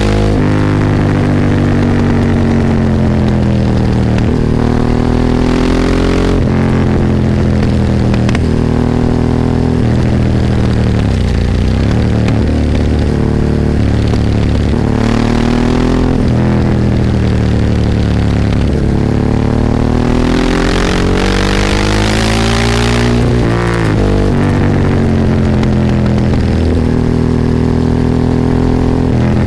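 Ducati 998's L-twin engine under way, its pitch climbing and dropping again and again as the bike accelerates through the gears and rolls off, with wind rush rising at times.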